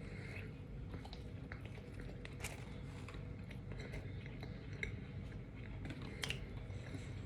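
A person chewing a sub sandwich close to the microphone, with small wet mouth clicks now and then.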